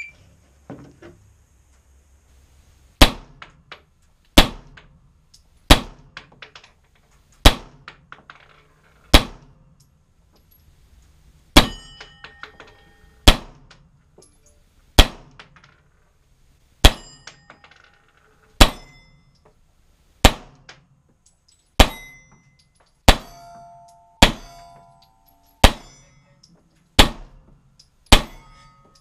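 Semi-automatic pistol shots fired at steel plate targets, a steady string of about seventeen shots roughly one and a half seconds apart. Several hits are followed by the brief ring of the struck steel plate.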